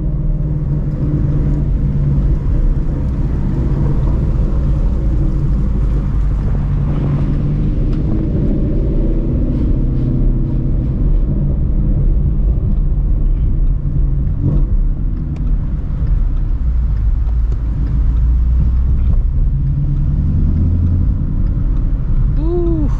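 Straight-piped Ford Shelby GT350 5.2-litre flat-plane-crank V8, with long-tube headers, running a deep, steady exhaust drone while cruising in traffic. Its pitch shifts a little as the speed changes.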